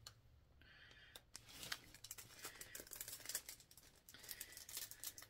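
Small clear plastic bag crinkling faintly in the hands as it is handled and opened, a scatter of short crackles.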